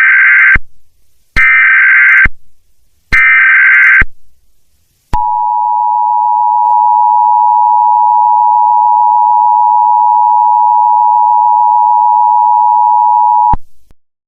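Emergency Alert System tones. Three one-second bursts of SAME header data come first. About five seconds in, the steady two-tone EAS attention signal starts, holds for about eight seconds, and then cuts off.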